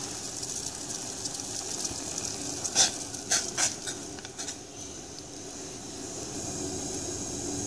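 Water with tulsi leaves and whole spices boiling in an aluminium pot: a steady bubbling hiss. A cluster of a few sharp clicks comes near the middle.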